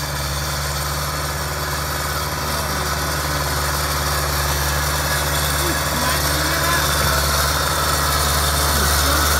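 Skid steer loader's engine running steadily as the machine works over a gravel driveway, growing slowly louder as it comes closer.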